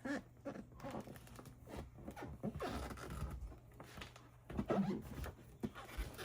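Adhesive laminate sheet and backing paper being handled and peeled, with irregular rasping, crinkling strokes.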